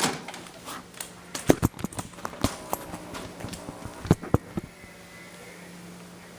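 A run of sharp clicks and knocks from a plastic VHS cassette and its case being handled, about ten in the first four and a half seconds. They give way to a faint steady hum with light hiss.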